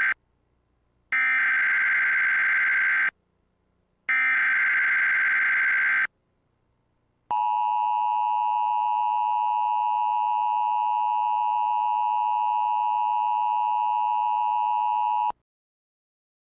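Emergency Alert System SAME header: two buzzy, warbling data bursts about two seconds each, a second apart, then the two-tone EAS attention signal, a steady harsh tone held for about eight seconds that cuts off abruptly. It announces an emergency alert about to be read out.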